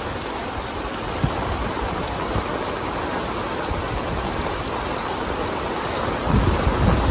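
Heavy tropical downpour: a dense, steady hiss of rain. Near the end, louder low rumbles come in on top.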